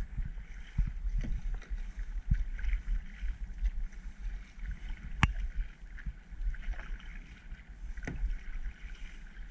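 Kayak paddling: paddle strokes splashing and dripping water, with a few sharp knocks, the loudest about five seconds in, over a low wind rumble on the microphone.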